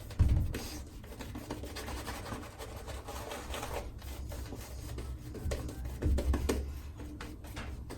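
Shaving brush working a thick shaving-cream lather, a continuous wet rubbing and rasping of the bristles, with a couple of dull bumps, one right at the start and one about six seconds in.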